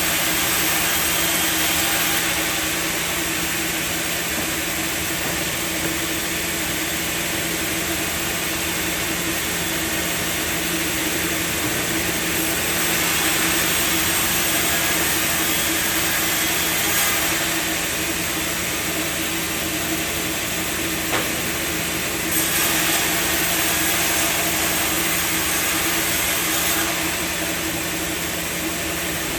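Sawmill machinery running steadily: a continuous mechanical noise with a constant low hum, swelling a little twice for a few seconds.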